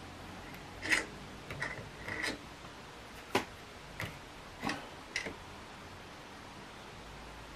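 Light, irregular clicks and knocks, about seven in five seconds, as a wooden rifle stock is handled against a small plastic-bodied bench vise and the vise's T-handle is turned to clamp it; the clicks stop about five and a half seconds in.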